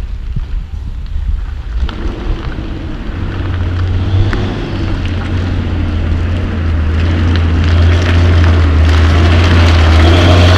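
Hino tandem-axle dump truck's diesel engine running steadily as the truck approaches, a low engine hum that comes up about three seconds in and grows louder as the truck draws close.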